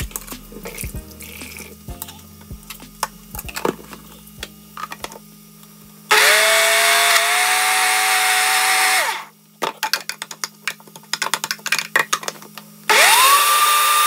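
Electric blender motor run twice: a burst of about three seconds about six seconds in, then started again near the end. Each time its whine rises as it comes up to speed and then holds steady. Short clicks and taps fill the gaps between the runs.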